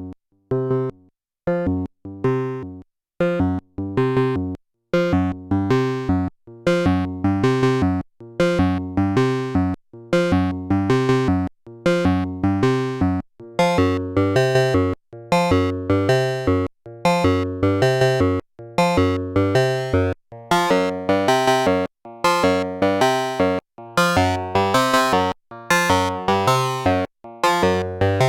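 Cre8audio Capt'n Big-O analog Eurorack oscillator playing a sequenced bass-register synth line of short, gated notes, a few irregular notes at first and then a steady repeating pattern. The tone grows brighter and richer in overtones from about halfway, most of all near the end.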